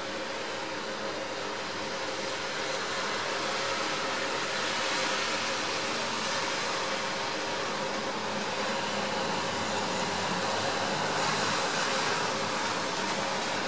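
Light rain falling outdoors: a steady, even hiss that grows slightly louder.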